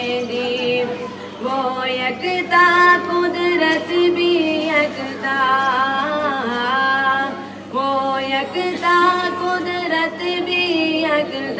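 A boy singing a devotional poem unaccompanied into a microphone, in long melodic lines with held notes.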